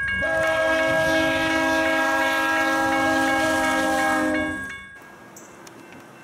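Diesel locomotive air horn of CN 3803 sounding one long chord-like blast of several notes at a level crossing. The blast cuts off about five seconds in, leaving a much quieter background.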